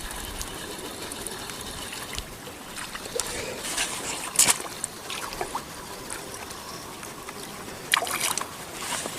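Water trickling and lapping steadily, broken by a few short, sharp sounds, the clearest about four and a half seconds in and near the end.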